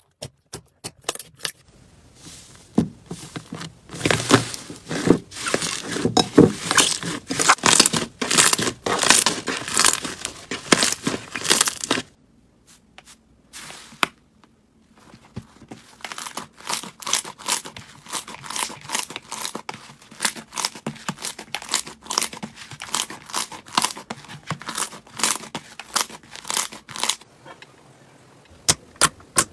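Crunchy foam-bead slime being squeezed and worked by hand: dense crackling and popping as the foam beads squash. The crackling stops for a few seconds about twelve seconds in, resumes, and thins to scattered pops near the end.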